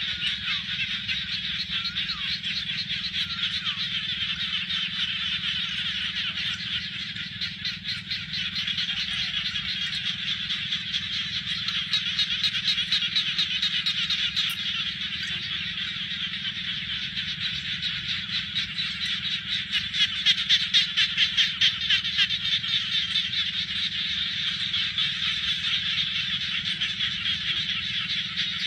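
Dense chorus of many frogs calling over flooded ground, a steady mass of fast, high pulsing calls that swells louder twice, over a low steady rumble.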